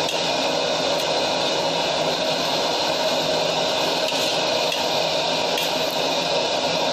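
Steady, even rushing noise of a commercial gas wok burner running under a steaming wok of paco fern as it is stirred.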